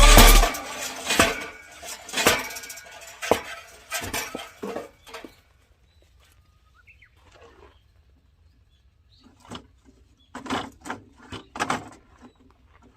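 Firewood being split: a run of sharp wooden knocks and clatter that grows quieter over about four seconds. After a pause, another cluster of knocks comes near the end.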